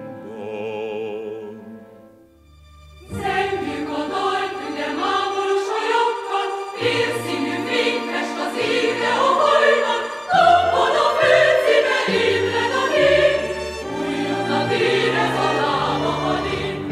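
Classical vocal music: a single voice holds a note with vibrato that fades away, then about three seconds in a choir with orchestral accompaniment comes in and carries on.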